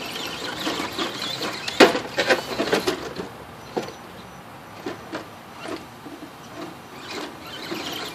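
Axial SCX10 radio-controlled rock crawler clattering and scraping as it climbs over concrete rubble and a wooden beam. The loudest knock comes nearly two seconds in, a run of knocks follows over the next second, and fainter knocks come every so often after that.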